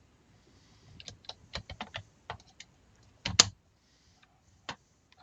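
Light clicks and taps of a Tippmann 98 paintball marker's rear receiver half being fitted back onto the gun, in a quick irregular run, with one louder knock about three and a half seconds in and a last click near the end.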